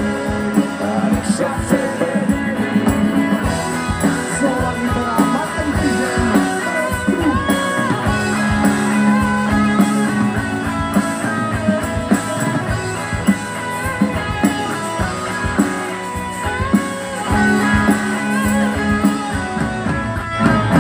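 Live rock band playing between the sung lines: electric guitars over a drum kit and keyboard.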